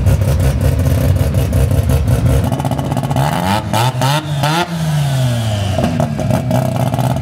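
Mazda RX-7's rotary engine running with a fast, choppy pulsing, its revs rising about three seconds in and dropping back again soon after.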